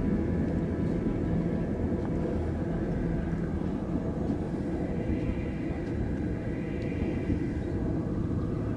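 A low, steady rumble with no clear onsets.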